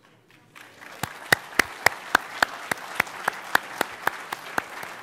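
Audience applauding, starting about half a second in. Above it, one pair of hands claps loudly close to the microphone, about four claps a second.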